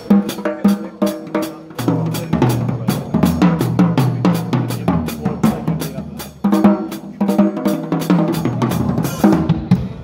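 Drum kit played in busy fills: snare, pitched tom strokes, bass drum kicks and Sabian AAX cymbals, a sound-check groove. A brief dip about six seconds in is followed by a loud hit.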